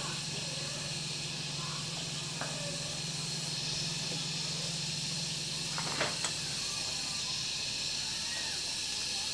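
Steady hiss with a low hum that stops about six and a half seconds in, and a single sharp click just before that.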